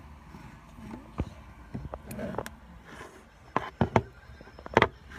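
Metal food cans knocking and clinking as they are handled and set down on a table: a handful of sharp knocks, three in quick succession a little past the middle and the loudest near the end.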